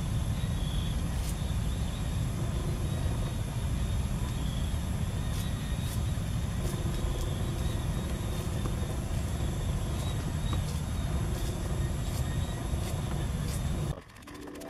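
Wood fire burning under a clay cooking pot: a steady low rumble and hiss with a few faint crackles. The sound drops off at the end.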